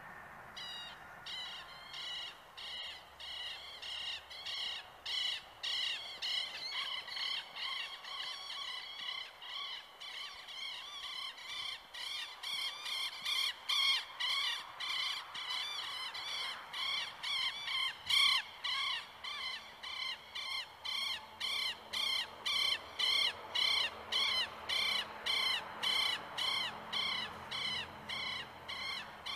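Rapids of a shallow, stony river rushing, under a harsh animal call repeated steadily about twice a second, each call rising and falling in pitch and louder than the water.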